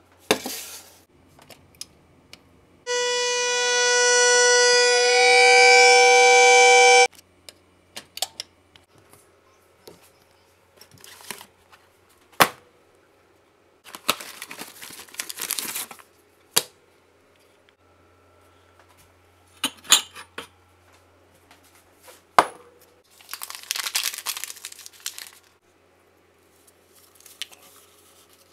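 Stainless-steel stovetop kettle whistling at the boil for about four seconds, a loud steady whistle that steps up in pitch twice before cutting off suddenly. Around it come a few sharp clicks and knocks and two bursts of paper crinkling and tearing from a hot-cocoa mix packet.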